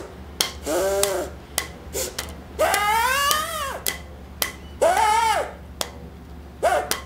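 Homemade craft-stick and rubber-band kazoo hummed in four buzzy notes that swoop up and down in pitch, the longest rising then falling near the middle. Short sharp plucks of a rubber-band guitar fall between the notes.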